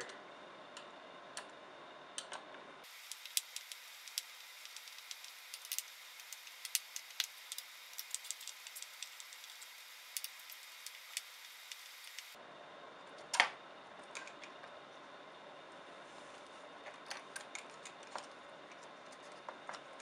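Scattered light clicks and ticks of a small screwdriver backing out the screws that hold the hard-drive caddy in an Alienware M18x R2 laptop, with one sharper click about thirteen seconds in.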